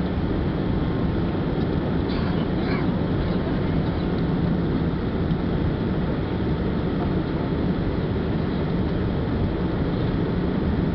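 Steady low rumble and hum of a Boeing 767-300's jet engines at low power, heard from inside the cabin as the airliner taxis and turns on the runway.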